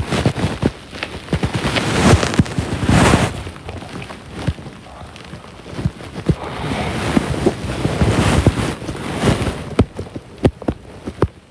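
A woman snoring in her sleep, close to the microphone: two long, rough, rattling breaths a few seconds apart, with crackling clicks throughout.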